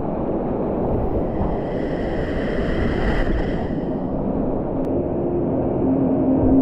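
Whitewater rapids rushing around a kayak as it runs down a steep creek: a dense, steady rush of churning water, heaviest in the low end. Soft ambient music tones come in near the end.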